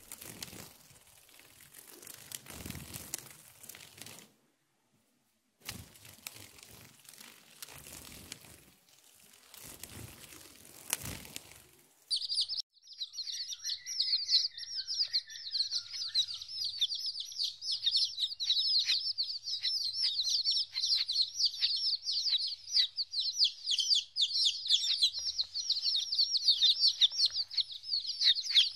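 A brood of domestic chicks peeping, many high cheeps in quick succession, starting about twelve seconds in. Before that there is a fainter rustling, crackling noise that breaks off briefly.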